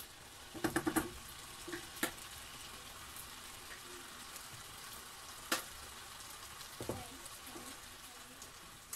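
Diced bacon and onions sizzling steadily in a frying pan, with a few short knocks and scrapes of a wooden spoon against the pan as it is stirred.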